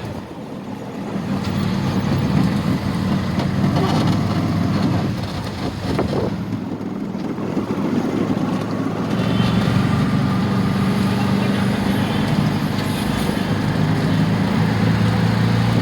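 A motor vehicle engine running steadily among road traffic, louder from about a second in.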